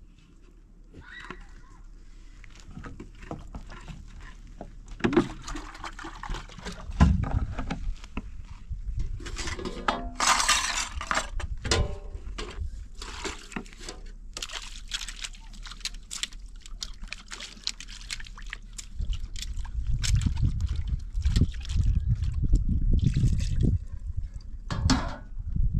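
Water being handled: irregular sloshing and splashing with small knocks, busiest about ten seconds in.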